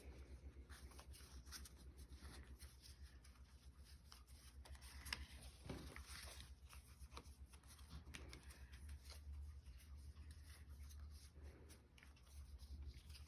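Faint handling of Pokémon trading cards, with soft clicks and rustles scattered throughout as the cards are flipped through, over a steady low hum.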